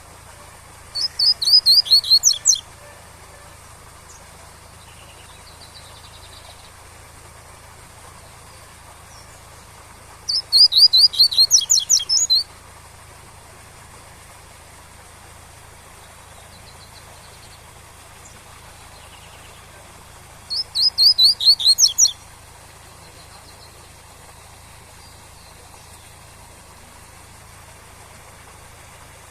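Double-collared seedeater (coleiro) singing its 'tui-tui' song: three short phrases about ten seconds apart, each a quick run of repeated whistled notes, over the steady rush of a waterfall.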